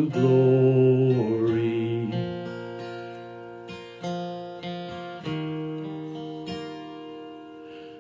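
A man sings the held last word of a hymn line over a strummed acoustic guitar. The voice then drops out and the guitar plays alone between verses: chords struck every second or so, each ringing and dying away.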